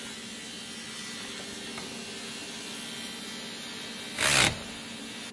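Steady workshop hum, then about four seconds in a cordless electric ratchet runs in one short burst, driving in a brake caliper bolt.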